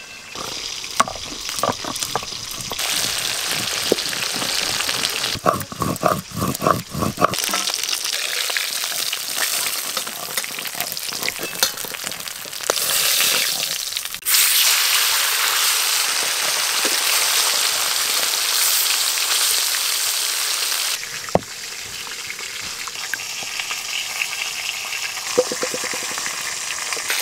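Fish steaks frying in mustard oil in a steel karahi: a steady sizzle that turns much louder about halfway through. During the first several seconds it is mixed with repeated strokes of a stone muller grinding green chillies on a grooved grinding stone (shil-nora).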